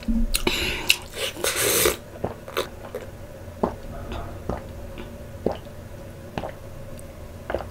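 A person drinking a glass of milk close to the microphone: two loud breathy rushes of air in the first two seconds, then a string of short swallowing gulps about every half second to a second.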